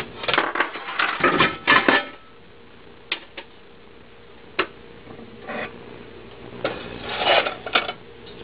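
Cookware being handled on a stovetop: a metal pot of cheese-sauced rotini and a stoneware baking dish, clinking, scraping and knocking. A run of scrapes and knocks comes in the first two seconds, then a few single taps, then another run near the end.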